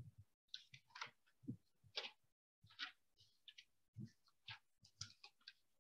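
Near silence with faint, irregular clicks and ticks, a few each second.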